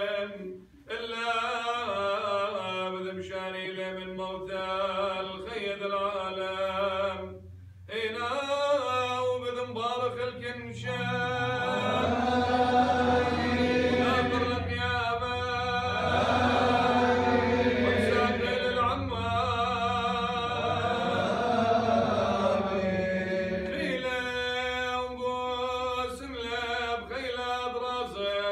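Liturgical chant of the closing blessing of the Chaldean Mass, sung by a man's voice in Aramaic. In the middle stretch many voices sing along together for about twelve seconds, and then a single voice carries on.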